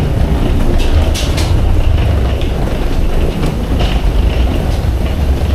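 Steady low rumble with scattered light clicks and rattles from people walking down an airport jet bridge and rolling a carry-on suitcase along its floor.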